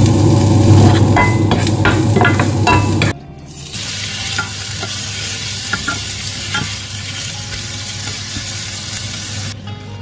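Diced pork belly and garlic sizzling in hot oil in a non-stick frying pan, stirred and turned with a wooden spatula that knocks and scrapes against the pan. A louder, deeper sound with clicks cuts off suddenly about three seconds in, and the steady sizzle follows until it thins near the end.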